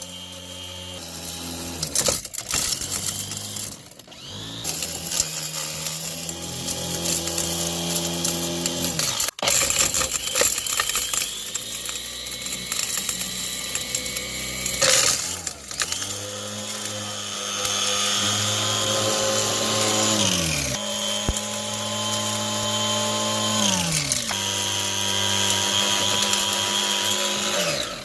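Portable motor-driven mini rock crusher grinding hammered chunks of gold quartz ore, with a steady crackle and rattle of rock being crushed over the motor. In the second half the motor is run up and let off three times, its pitch sliding down each time it slows.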